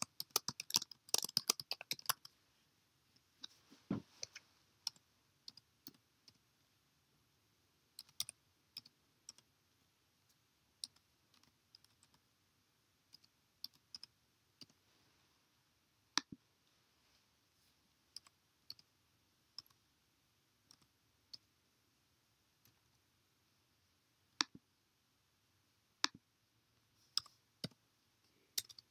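Computer keyboard keys clicking as card details are typed in: a quick run of typing in the first two seconds, then scattered single key presses and clicks.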